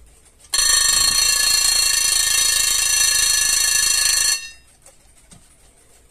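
Vintage Japy Pink Panther alarm clock's alarm bell ringing loudly and continuously for about four seconds, then cutting off abruptly with a brief ring-out.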